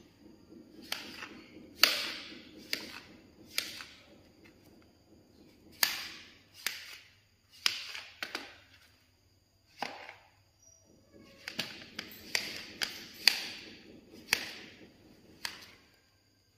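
Knife cutting a papaya into chunks on a tray: about fifteen sharp, irregular knocks as the blade goes through the fruit and strikes the tray, with a short lull in the middle.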